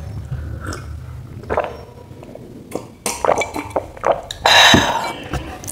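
A woman gulping lemon juice from a glass jar, with a glass clink as the jar is set down. Near the end comes a loud breathy puff of air as she blows out after the spicy food.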